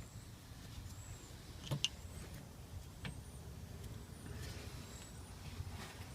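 A low background with two faint, sharp clicks, typical of brake caliper parts or tools being handled, plus a few faint, brief high chirps.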